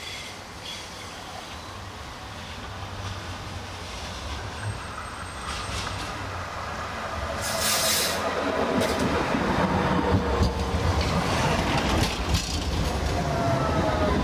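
Bombardier Flexity Swift tram approaching on curved track and passing close by. Rumble of wheels on rails grows louder through the middle, with a brief hiss and then high whining tones that fall slightly in pitch as the tram goes past.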